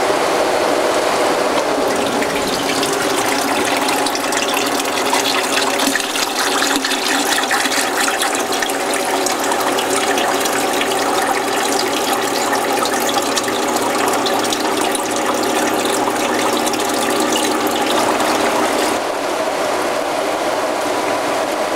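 Flush pump running with a steady hum as water from the return hose gushes and splashes into a plastic bucket, circulating descaler through a marine engine's raw-water cooling system.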